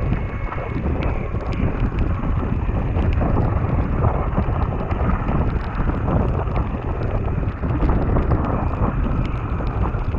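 Wind buffeting the microphone of a mountain bike rider's action camera at speed downhill, over tyres rolling on a wet gravel track, with frequent small clicks and rattles.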